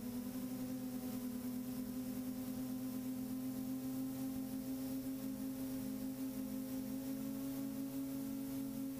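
Drone's electric motors and propellers humming steadily in flight, a strong low tone with several higher overtones over a faint airy hiss.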